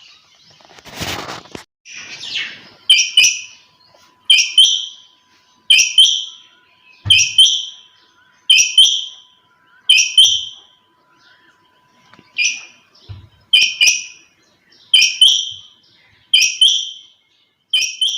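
A female quail calling over and over, each call a quick pair of high falling notes, repeated about every second and a half. A brief loud rustle about a second in.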